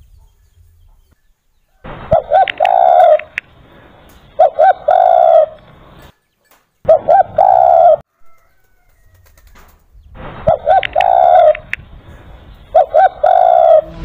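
Spotted dove (derkuku) cooing: five calls, each two short coos followed by one longer coo.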